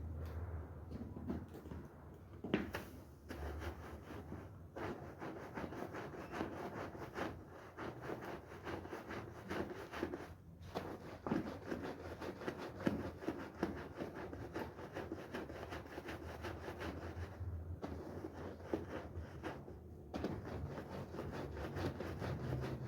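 Scrubbing of a foamy, soapy woollen carpet: a rough, rapid rubbing of many quick strokes, pausing briefly a few times.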